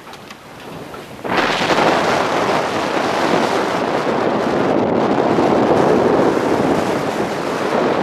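Strong wind buffeting the microphone, cutting in abruptly about a second in and staying loud and steady.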